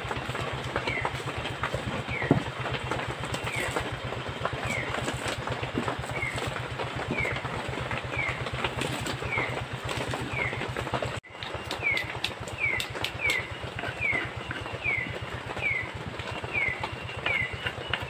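Heavy rain falling steadily, with a regular low hum under it and a short, high, falling chirp repeated about twice a second. Shallots and chilli are being crushed with a stone pestle in a stone mortar. The sound drops out briefly about eleven seconds in.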